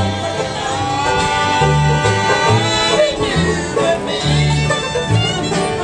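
Bluegrass music: banjo picking over a bass line that alternates low notes about twice a second, with a singing voice.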